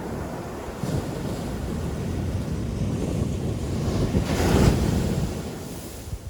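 Ocean surf: a wave breaks on the beach, its rushing noise building to a peak about four and a half seconds in and then falling away.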